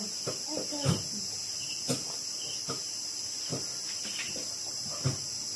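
Steady chorus of crickets, with short clinks of chopsticks and spoons against bowls, the loudest about a second in.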